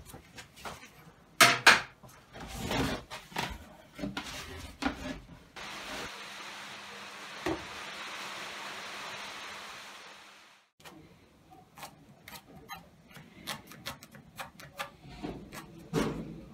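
Pine boards and a metal straightedge being handled and set down, with scattered knocks and clacks; the loudest is a pair of sharp knocks about a second and a half in. A steady hiss with a faint hum fills several seconds in the middle.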